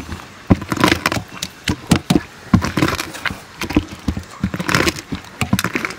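Wooden pestle pounding grapes in a steel bowl to crush them for juice: a run of irregular knocks and thuds, about three or four a second.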